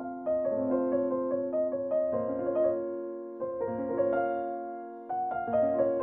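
Background piano music: phrases of struck notes that ring and fade, with a short lull about three seconds in and again about five seconds in.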